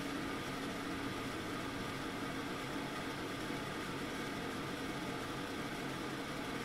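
Kitchen range hood fan running steadily: an even rush of air with a faint hum.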